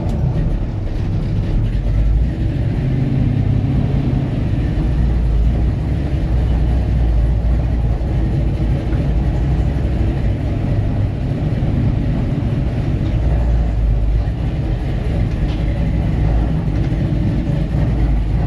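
1962 truck's engine running steadily at idle, warming up.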